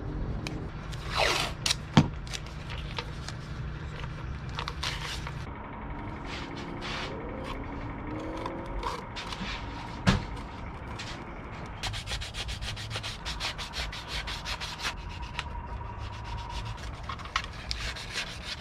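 Rubbing and scraping of hand work, over a steady low hum, with two sharp knocks about two and ten seconds in and a run of quick clicks in the second half.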